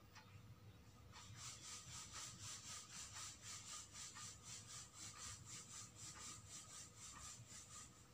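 Quiet, rhythmic back-and-forth rubbing or scraping strokes, about four a second, starting about a second in.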